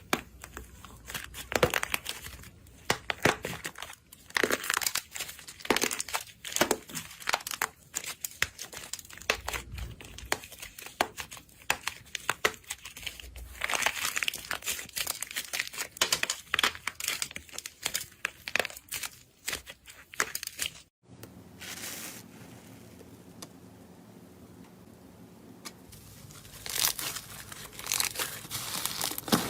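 Slime being squeezed and worked by hand, giving dense crackling and crinkling sounds. About 21 s in it cuts to a quieter stretch with a faint low hum, and the crackling returns near the end.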